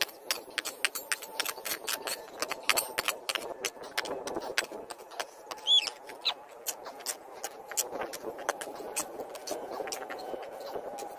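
Rapid clicks and clinks of a hand digging tool knocking and scraping in stony ground, thickest in the first few seconds. A short high squeak or chirp is heard about six seconds in.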